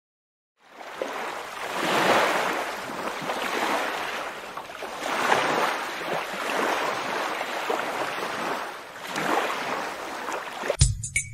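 Ocean surf, waves washing in and drawing back in slow surges every three to four seconds after a brief silence. Music starts just before the end.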